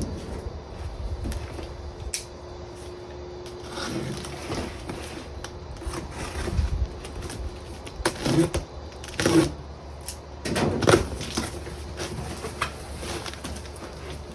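A parcel being unwrapped by hand: scattered rustles, crinkles and knocks of packaging and paper, several louder ones in the second half.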